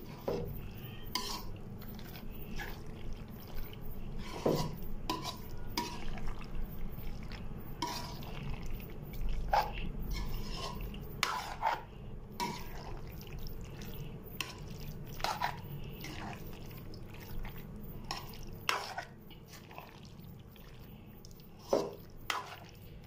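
Metal spoon stirring pasta shells through a thick cream sauce in a metal pan, with irregular scrapes and knocks of the spoon against the pan over a low steady hum.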